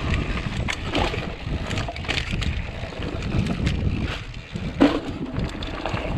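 Mountain bike rolling down a dirt singletrack: low wind buffeting on the camera's microphone and tyre rumble, with scattered clicks and rattles from the bike and one louder knock a little before the end.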